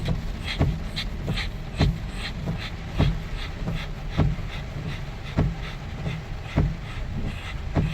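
Windshield wipers in a car cabin, thumping evenly about once every 1.2 seconds at each end of their sweep over a steady road rumble, with fainter light ticks between the strokes.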